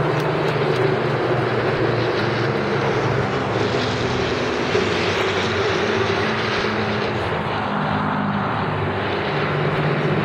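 An Avro Lancaster bomber and escorting WWII single-engined fighters flying overhead in close formation: the steady, deep drone of many piston engines and propellers together.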